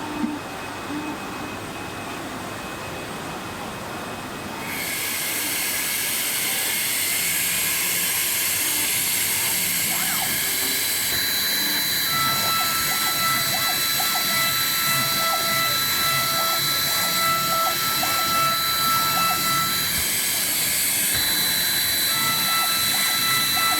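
Cutting plotter for patterns and shoe templates running: a steady hiss sets in about five seconds in, with high whining motor tones that come and go and light clicks as the machine works.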